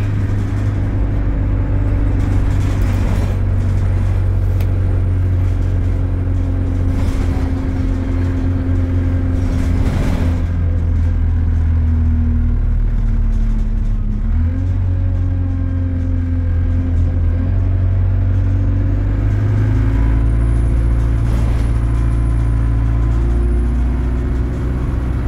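Interior sound of an Alexander Dennis Enviro200 single-deck bus under way: the diesel engine runs with a steady low drone whose pitch steps down and back up a few times as the automatic gearbox shifts and the bus speeds up, with a couple of brief rattles.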